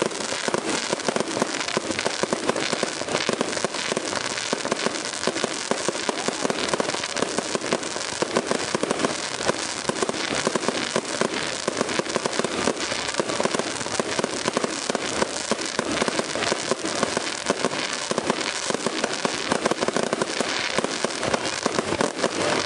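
Fireworks display going off: a dense, continuous barrage of crackling and popping bangs, many a second without a break, from firework fountains and crackling stars.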